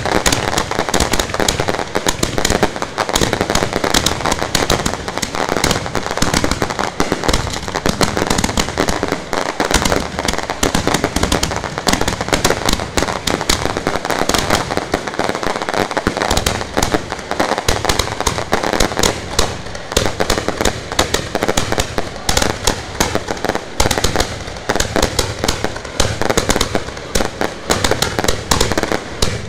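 Fireworks launched a few metres away: a dense, unbroken barrage of bangs and crackling, many reports a second, as shells fire one after another from the launch tubes.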